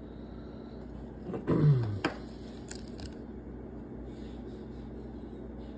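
Light handling of a plastic penny sleeve and trading card, with a few faint clicks about two to three seconds in. Just before them comes one short, low vocal sound that falls in pitch.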